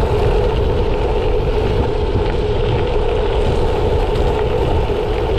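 Wind buffeting the camera microphone over the rumble of gravel-bike tyres rolling fast over a loose gravel track, freewheeling downhill. The noise is loud and steady.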